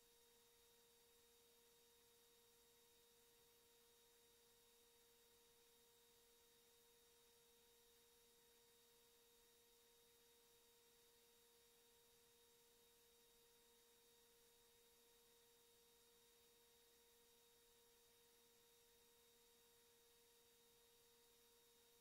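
Near silence: a faint steady hiss with a thin, unchanging tone underneath.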